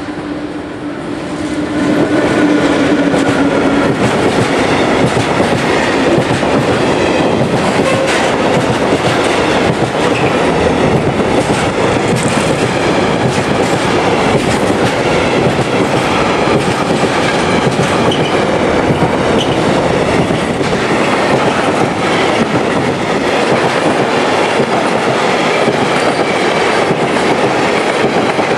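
Freight train passing close by, its wheels rumbling and clattering over the rail joints. The sound swells about two seconds in and then holds a steady loud run of wagons.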